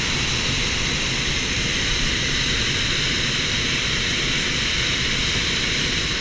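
Hot air balloon's propane burner firing in one long, steady, loud blast of rushing flame noise, heating the air in the envelope.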